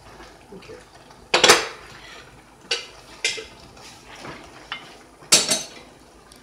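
Wooden spoon stirring spaghetti in a nonstick pot, with a few sharp knocks of the spoon against the pot, the loudest about a second and a half in and again near the end.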